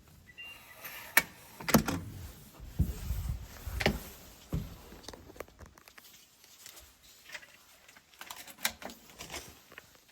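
Irregular clicks and knocks of small objects being handled, loudest in clusters near the start, the middle and late on.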